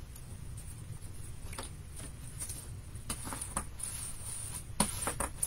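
Paper cover being pressed and smoothed onto a chipboard piece by hand: faint rustles and light taps, with a sharper tap near the end, over a low steady hum.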